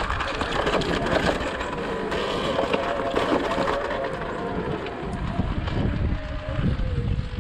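Sur-Ron Ultra Bee electric dirt bike being ridden along a woods trail. The motor's whine wavers up and down with speed over the noise of the tyres and chassis on dirt and dry leaves.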